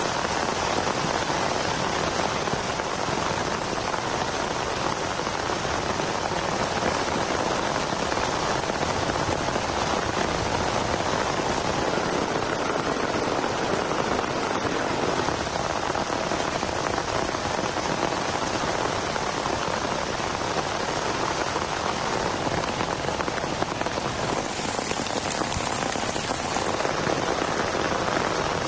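Heavy rain falling steadily, a dense, even hiss of many drops that does not let up.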